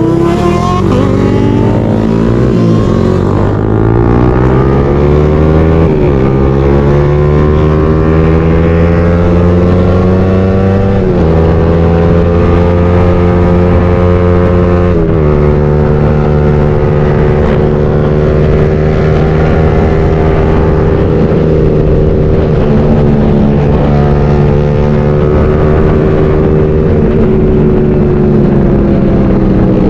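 Motorcycle engine heard from the rider's position, accelerating up through the gears: the pitch climbs, then drops with an upshift about 3, 6, 11 and 15 seconds in. After that it settles at a steady cruising pitch.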